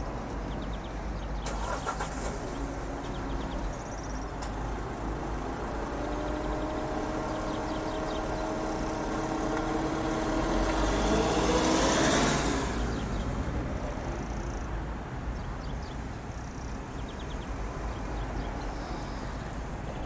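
A motor vehicle passing, its engine hum swelling to a peak about twelve seconds in and then fading away, over a steady outdoor background with faint bird chirps.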